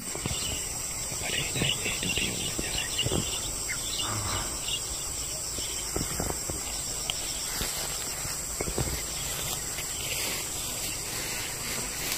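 Insects droning steadily in a high, even pitch, with scattered soft thumps and rustles.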